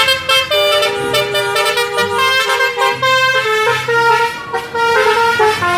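Telolet bus horn playing its tune: a string of held horn notes stepping up and down in pitch, one after another.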